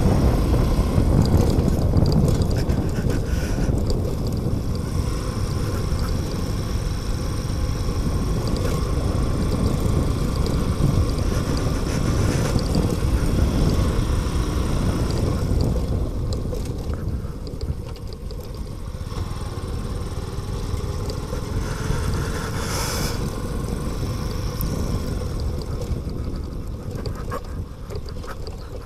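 Motorcycle running along a dirt track, its engine mixed with a dense low rumble of wind and road. The rumble eases somewhat in the second half, and a brief higher sound comes about three-quarters of the way through.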